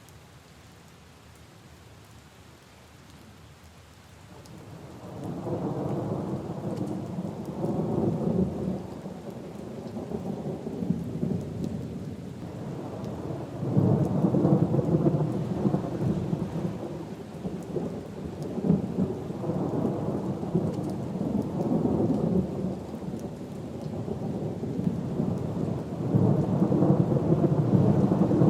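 Light steady rain, then from about four seconds in a long rolling rumble of thunder that swells and fades in waves, loudest near the middle and again near the end.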